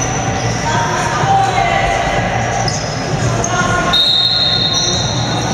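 Indoor futsal play echoing in a sports hall: ball thuds and shoe squeaks on the wooden floor, mixed with players' calls. About four seconds in, a high steady tone sounds for about a second.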